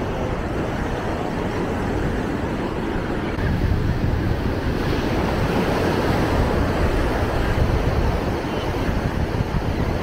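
Ocean surf breaking and washing up the beach, with wind rumbling on the microphone; it grows louder about a third of the way in.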